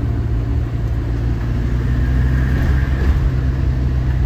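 Motorhome engine running steadily with road noise while driving slowly, a constant low hum.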